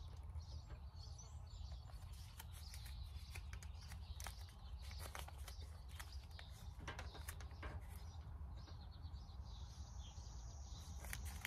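Quiet outdoor ambience: a low steady rumble with scattered faint clicks and rustles of blue painter's tape and a tape measure being handled against a truck's fender. Faint bird chirps, and a thin steady high tone near the end.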